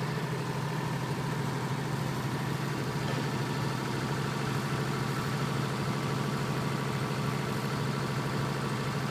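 GBPOWER 50 kVA super-silent (sound-proofed canopy) diesel generator set running at a steady speed, heard from about one metre. It is an even, unchanging hum.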